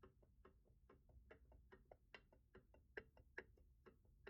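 Faint, irregular metallic clicks and taps from a camshaft being handled and turned in the aluminium bearing saddles of a cylinder head.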